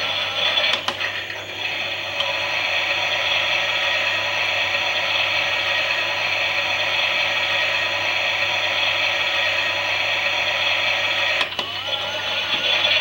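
Small electric motor of a Klein Miele toy washing machine whining steadily as it turns the drum, with a click about a second in and another near the end, after which the whine wavers up and down in pitch.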